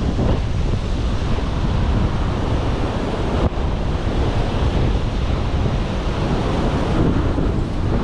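Strong wind buffeting the microphone over the steady rush of surf breaking on a stormy sea shore.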